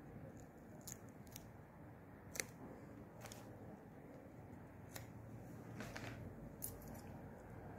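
Small scissors and a plastic power bank case being handled: a scattering of about seven sharp clicks and snips, irregularly spaced, the loudest about two and a half seconds in.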